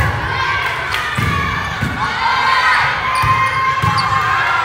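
Volleyball rally in a gym: several dull thumps of the ball being served and played, under echoing girls' voices calling and cheering.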